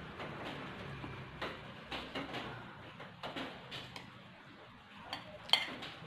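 Eating sounds: chopsticks clicking against a plate while picking up food, with chewing between the clicks. A sharp click about five and a half seconds in is the loudest.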